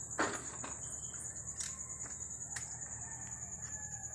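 Crickets trilling steadily in a high, finely pulsing band, with a faint rooster crow in the middle and a few light knocks.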